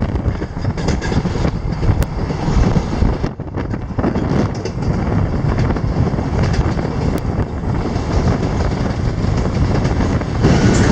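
Passenger train running over a river bridge, heard from on board: a steady rumble of wheels on the track, briefly dipping a little over three seconds in.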